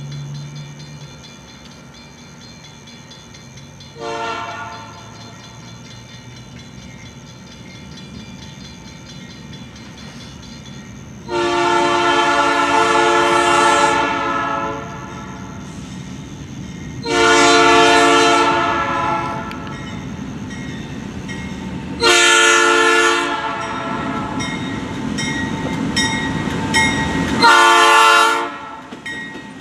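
Freight diesel locomotive's air horn sounding a chord of several notes as the train approaches: a brief toot about four seconds in, then two long blasts and two shorter ones. The low rumble of the engine and wheels grows under the horn near the end.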